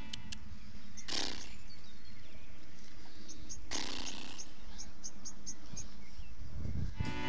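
Open-air pasture ambience: a small bird gives a quick series of short high chirps over a steady low rumble, with two brief rushing noises, one about a second in and one near the middle.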